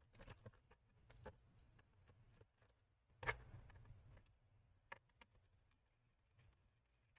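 Faint, scattered clicks and taps of a small Phillips screwdriver working the laptop's back-cover screws, the clearest a little over three seconds in and another near five seconds; otherwise near silence.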